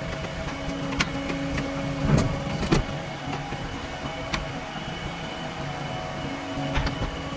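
JCB 3DX backhoe loader running with a steady engine hum, broken by several sharp metallic knocks and clanks, the loudest pair about two to three seconds in.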